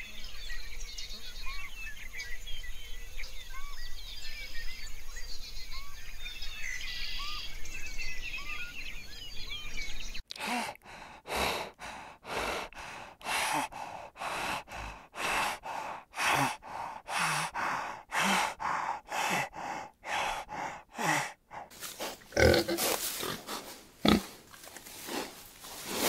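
Animal calls: for about ten seconds many short, faint chirps, then after a sudden cut an animal giving a series of short, loud calls about two a second, closer together near the end.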